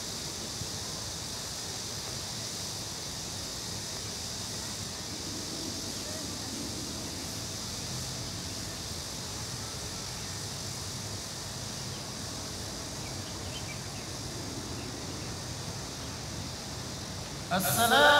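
Steady outdoor background hiss over a large crowd standing silently in prayer, with faint distant voices. Near the end a prayer leader's chanted recitation starts suddenly and loudly.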